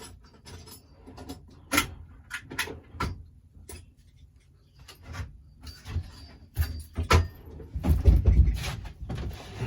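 Hand tools clinking and knocking while someone rummages for a wrench: a string of irregular sharp clicks, with a few heavier thumps about two-thirds of the way in.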